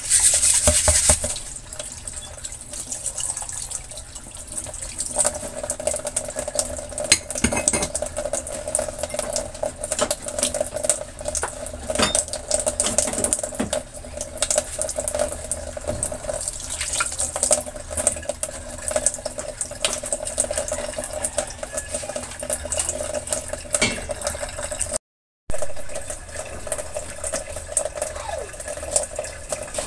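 Tap water running over a gas burner cap in a stainless steel sink, loudest in the first second, followed by a lower steady wash of sound with many scattered light clicks and knocks as the gas range top is wiped down with a cloth.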